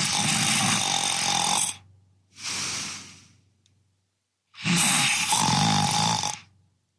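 A man snoring in his sleep: two loud snores about two seconds long, a few seconds apart, with a softer breath out after the first. He is still snoring after two weeks with an anti-snoring mouthpiece, a sign that the device has not worked.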